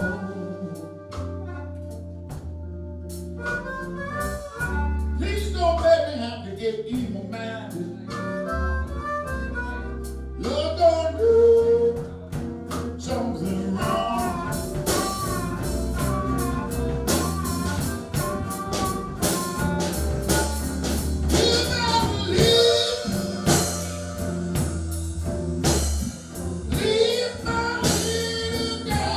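Live blues song: a man singing into a microphone, backed by electric guitar.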